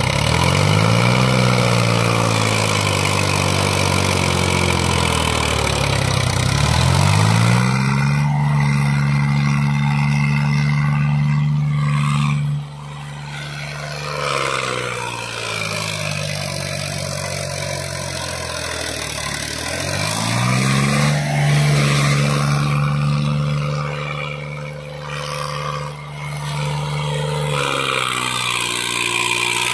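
Sonalika DI 35 tractor's diesel engine revving hard under load, straining to haul a fully loaded trolley through soft sand. The revs climb and hold high, fall back, and climb again three times.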